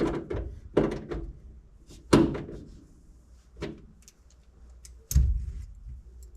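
Five separate knocks and clunks, spread over about five seconds, from seat and seatbelt hardware being handled and fitted in an old truck; the loudest come about two seconds in and near the end.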